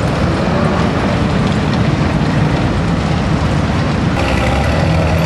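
Engines of WWII military vehicles, including M3 half-tracks, running as they drive slowly past: a steady low rumble. The sound shifts about four seconds in.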